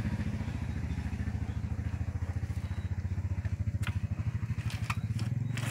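A small engine idling with a fast, steady low pulsing, and a few faint clicks past the middle.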